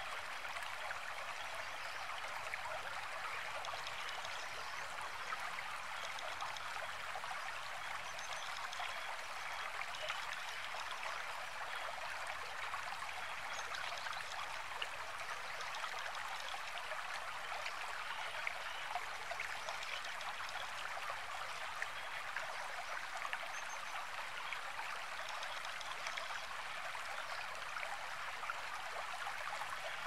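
Shallow stream running over stones, a steady rush of water. A few faint high chirps come through about a third of the way in and again near the end.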